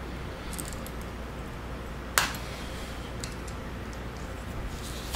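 Small metal clicks and taps from handling a hydraulic control valve body while a spool is worked into its bore. There is one sharp click about two seconds in and a louder one at the very end, over a steady low hum.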